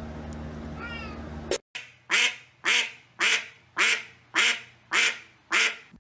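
A steady low hum, then after a sudden cut about one and a half seconds in, an animal calls seven times in an even rhythm, about twice a second, each call short and pitched.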